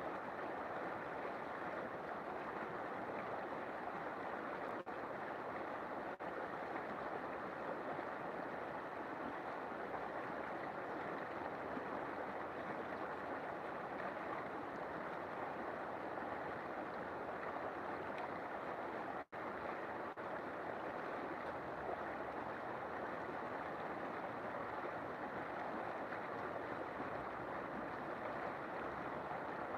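River water flowing steadily, a continuous even rushing, broken once by a momentary dropout about two-thirds of the way through.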